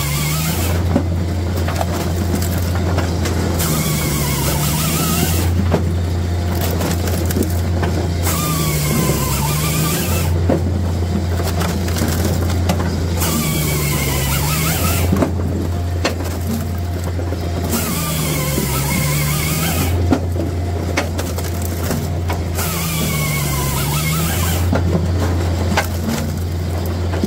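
Japa 405 firewood processor running through its cut-and-split cycle over and over, about every five seconds. A low machine drone under load alternates with a harsher, noisier stretch, and the pitch dips and recovers each time.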